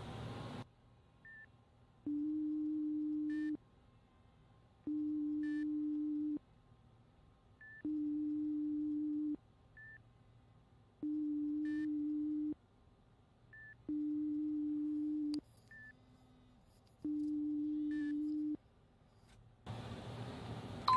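Ringback tone of an outgoing imo call on a phone: a low steady tone repeating six times, each about a second and a half long with pauses of about the same length, and faint short high blips in between.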